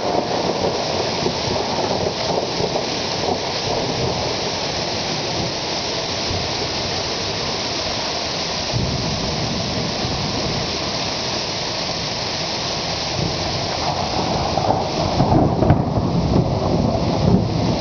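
Heavy hail mixed with rain pelting the garden and roofs in a dense, steady hiss, while low thunder rumbles underneath, loudest near the end.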